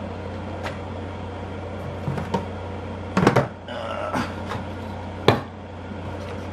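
Objects being handled off to the side: a few scattered clicks and knocks, the sharpest about five seconds in, over a steady low hum.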